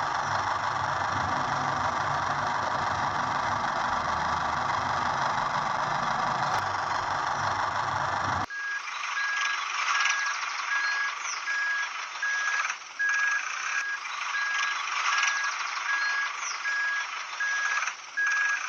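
A steady motor or engine noise runs for about eight seconds, then cuts off suddenly. It gives way to a high electronic beep repeating at an even pace, about three beeps every two seconds, like a vehicle's reversing alarm.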